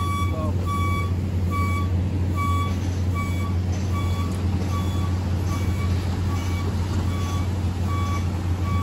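Door-closing warning beeps on a Metro-North passenger coach: a short high beep repeating about twice a second. Underneath runs the steady low hum of the standing train.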